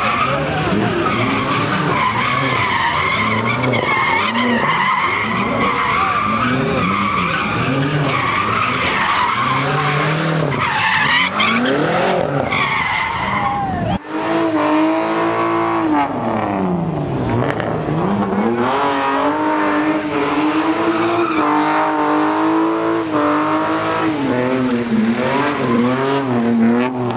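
A car doing donuts: tyres screeching as they spin and slide on asphalt, under a high-revving engine whose pitch swings up and down. There is a sudden change about halfway through, after which the engine revs drop sharply and climb back up, then stay high and wavering.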